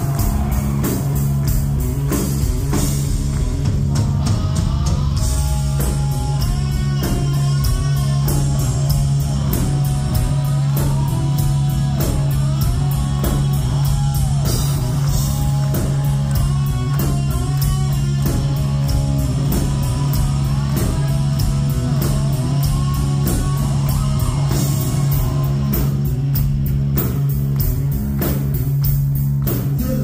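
Live heavy metal band playing an instrumental stretch. Electric guitar plays a lead line of bending, wavering notes over a held low bass note and steady drum hits.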